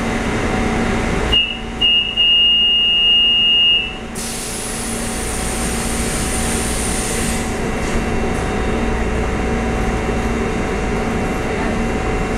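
A stationary EMU400 electric train hums steadily. About a second in, a high electronic tone sounds: a short beep, then a tone held for about two seconds. Then air hisses for about three seconds with a faint high whistle.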